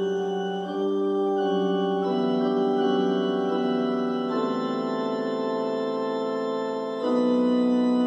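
Dungeon synth keyboard playing slow, sustained chords, moving to a new chord every one to three seconds with no drums, a little louder near the end.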